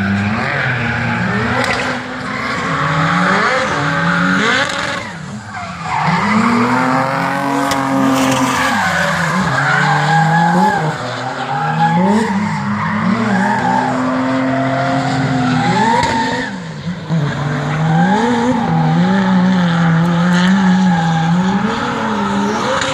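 Drift car engine revved hard and let off again and again, its pitch swinging up and down, with tyres squealing as the car slides through the corners. The sound drops briefly about five seconds in and again about sixteen seconds in.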